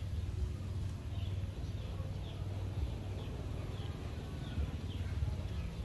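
Small birds chirping, short falling chirps repeating about twice a second, faint over a steady low rumble.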